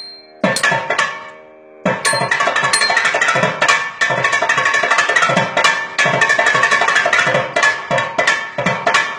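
Thavil, the South Indian barrel drum, played in a thani avarthanam solo, with sharp cracking strokes and deep low strokes. After one stroke near the start rings out in a short pause, a dense, fast run of strokes starts about two seconds in and keeps going.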